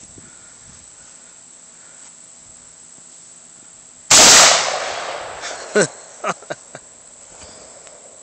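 A single AR-15 rifle shot about four seconds in, loud enough to clip, trailing off over a second or so. A few short sharp ticks follow it in quick succession.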